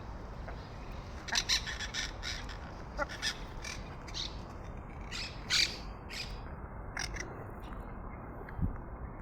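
Parrot squawking: a series of short, harsh calls a second or so apart, the loudest about five and a half seconds in.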